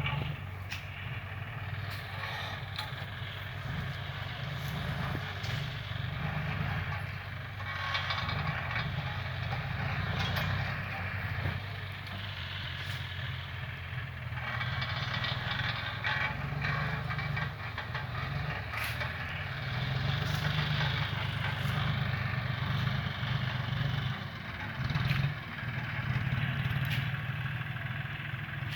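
John Deere 5045D tractor's three-cylinder diesel engine running steadily.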